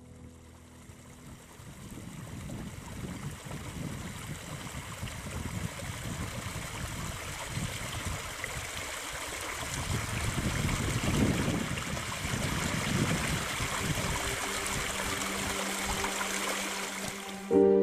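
A stream running, a steady rush of water that fades in over the first couple of seconds and cuts off abruptly just before the end.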